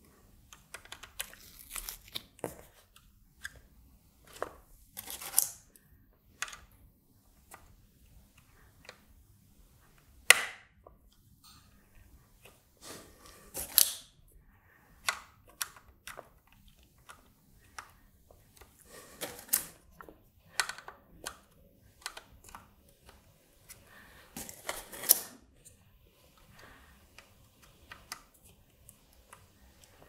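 Momentary toggle switches being pushed by hand into an acrylic front panel and circuit board: scattered plastic clicks and short scraping rubs, with a few louder click-and-scrape moments.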